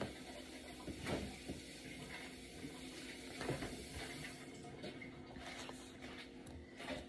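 Faint household sounds: scattered soft knocks and rustles over a low steady hum.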